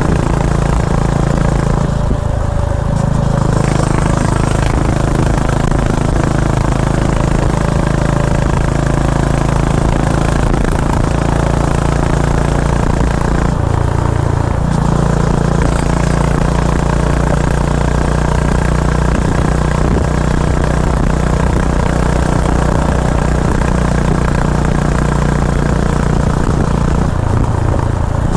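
Honda H'ness CB350's air-cooled single-cylinder engine and exhaust running steadily at highway speed, heard from the rider's seat. The note briefly dips and changes pitch three times, near the start, midway and near the end.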